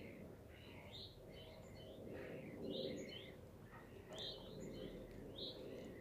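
Small songbirds chirping and singing: short high notes come in quick succession, several each second, over a steady low background hum.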